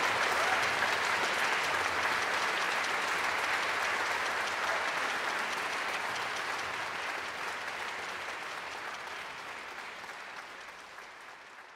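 Audience applauding after an orchestral performance: dense, even clapping that grows gradually fainter and fades away at the end.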